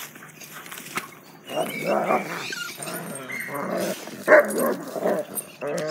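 Young dog barking repeatedly and agitatedly at a rake, a rough burst after another from about a second and a half in, loudest a little past four seconds.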